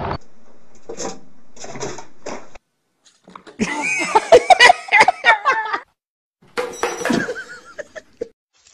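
A cat yowling in two loud bursts, its cries bending up and down, mixed with sharp knocks and clatter.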